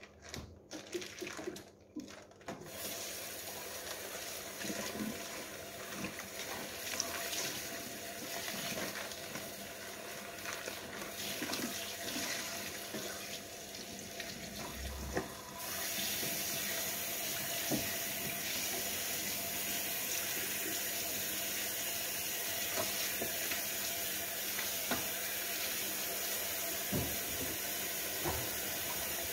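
Kitchen tap running into a stainless-steel sink as raw pork is rinsed under the stream by hand. The water gets louder and steadier about halfway through.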